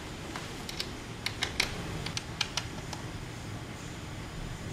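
About ten light, sharp clicks and ticks, mostly in the first three seconds, from a hex key and bolts being handled and fitted as bolts are tightened into a wooden tabletop.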